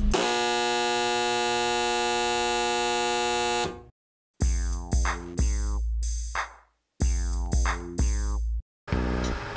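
A steady, harsh electronic buzzer tone held for about three and a half seconds, like a game-show 'wrong answer' buzzer, then after a short silence two phrases of short electronic synth and drum-machine stabs with heavy bass, each cutting off abruptly.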